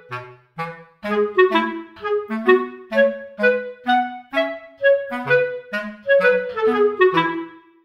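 Background music: a melody of short, separate notes over a bass line.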